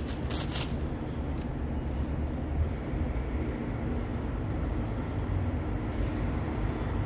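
Plastic bag crinkling briefly near the start as a metal floor flange is unwrapped, over a steady low rumble.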